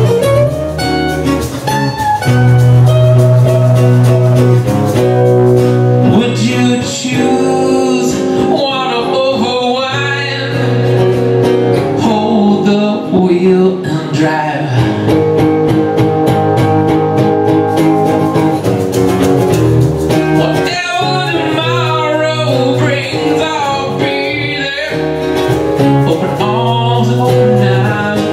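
Two acoustic guitars strummed together with a man singing the melody, a live acoustic band performance.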